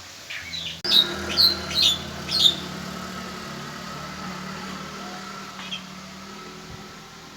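A small bird giving four loud, sharp chirps in quick succession about a second in, with a few fainter chirps just before. A steady low hum runs underneath.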